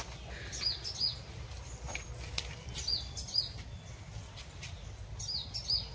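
A bird calling repeatedly, each call a pair of short, high, falling chirps, heard three times about two and a half seconds apart, over a low steady hum.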